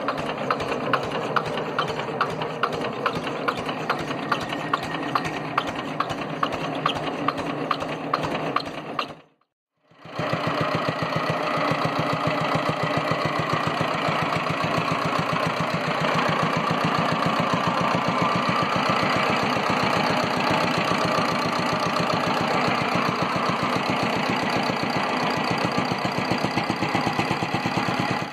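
Single-cylinder air-cooled Petter diesel engine running with a steady, rhythmic knocking beat. It breaks off briefly about nine seconds in, then carries on at a faster, more even beat.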